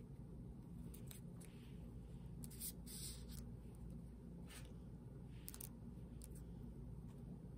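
Quiet handling noise from a leather zip-around wallet being turned in the hands: scattered short scratchy rustles and small clicks from fingers, its plastic protective film and metal zipper pull, over a steady low hum.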